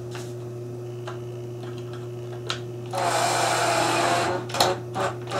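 Cordless drill-driver running for about a second, driving a small screw into wood, with a few light clicks of the tool being handled before and after.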